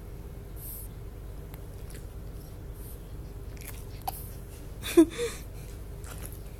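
A single sharp hiccup about five seconds in: a sudden short 'hic' with an upward jump in pitch, followed at once by a softer catch. A faint small pop comes just before it. A steady low hum runs underneath.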